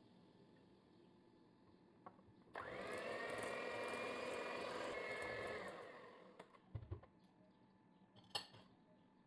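Moulinex electric hand mixer beating cake batter in a glass bowl for about three seconds. Its whine rises as it starts and dies away as it is switched off, and a few light clicks follow.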